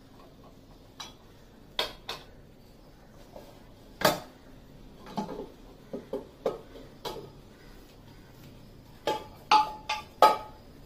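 Pressure cooker's metal weight and lid being handled: a series of sharp metal clinks and knocks as the lid is twisted open and lifted off, the loudest about four seconds in and near the end, some with a brief ringing.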